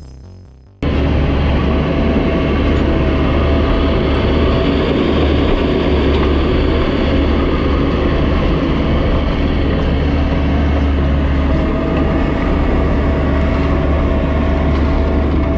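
Diesel engine of heavy earthmoving equipment running steadily at work, a strong low hum with a thin steady whine above it. It cuts in abruptly about a second in as music fades out.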